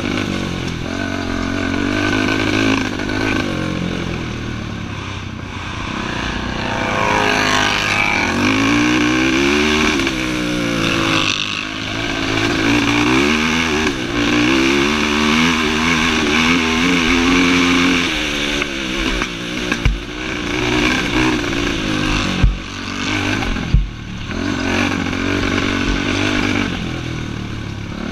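Racing ATV engine revving hard and easing off again and again, its pitch climbing and dropping as it accelerates and backs off. A few sharp knocks come in the later part.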